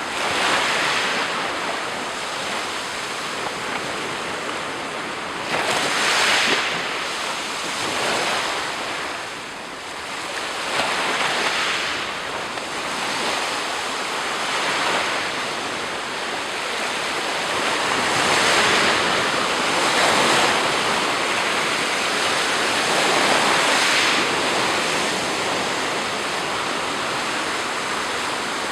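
Sea surf: waves breaking and washing on the shore in a steady hiss, with louder breakers every few seconds, some wind on the microphone.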